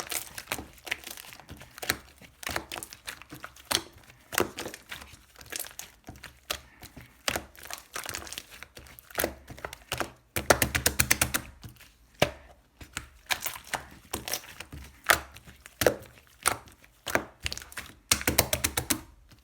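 Shaving-foam slime being squeezed, pressed and stretched by hand, making irregular squishy pops and crackles. Two fast runs of crackling clicks come about halfway through and near the end.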